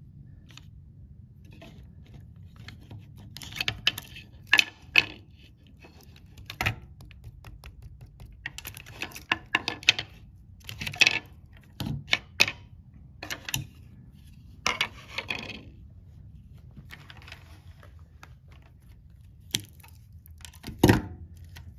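Scattered clicks, knocks and light rattles of an opened-up old Weller soldering gun being handled: its metal tips, bulb holder and plastic housing shifting and tapping against a wooden tabletop. A few sharper knocks stand out, the loudest near the end.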